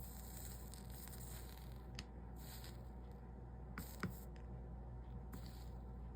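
Soldering iron melting 60/40 solder along copper-foiled stained-glass seams, the flux sizzling in short spells of hiss, with a few light ticks and taps, the sharpest about four seconds in, over a low steady hum.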